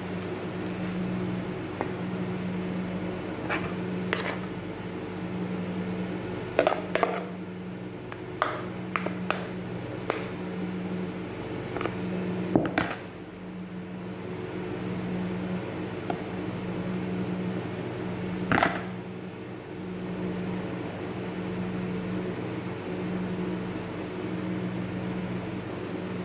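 A steady low machine hum with a few held tones, over which come scattered light knocks and clicks of food and a plate being handled while a tortilla wrap is filled and folded.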